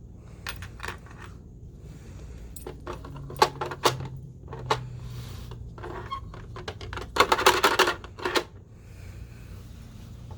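A dog working at a puzzle box: irregular clicks and clatters of the box's hard parts knocking together, with a quick flurry about seven to eight seconds in.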